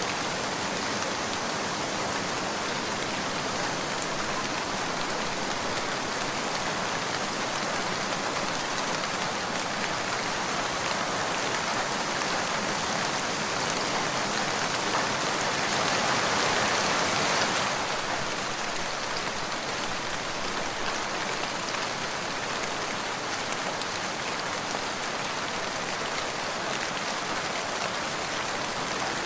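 Steady rain falling, an even dense hiss. About halfway through it swells louder for a few seconds, then drops back suddenly to its earlier level.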